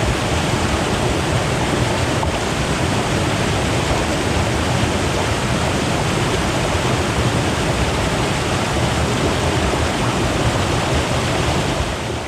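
Fast-flowing river water rushing and gurgling steadily over rocks, a full dense wash of water noise that begins to fade near the end.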